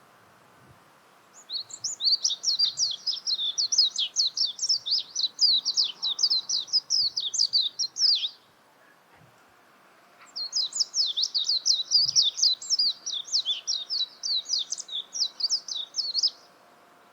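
Japanese white-eye singing: two long phrases of rapid, high, twittering notes, each lasting about six seconds, with a short pause between them.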